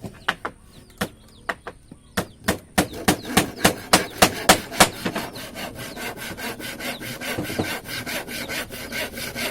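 Hand saw cutting wood: a few scattered strokes, then a steady rhythm of about three strokes a second, turning into faster, denser sawing about halfway through.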